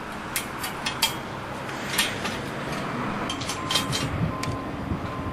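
Scattered metal clinks and taps as the hoist's steel tie bars and locking pins are fitted together, over steady background noise.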